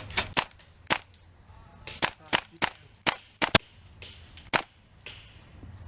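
Tokyo Marui MP7 gas blowback airsoft SMG firing rapid single shots, about ten sharp cracks in quick uneven groups, the last one alone near the end.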